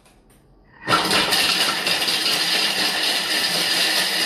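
Bimby (Thermomix) TM6 kitchen machine starting about a second in and running at speed 7, its blade chopping chunks of Parmesan coarsely in the steel bowl with a loud, steady noise.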